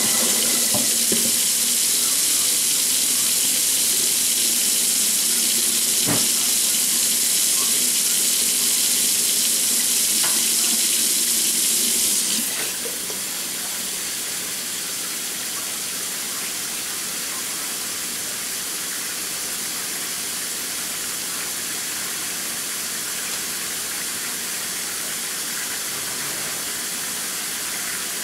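Kitchen faucet running into the sink, then shut off about twelve seconds in. A quieter steady hiss carries on after it, with a light knock about six seconds in.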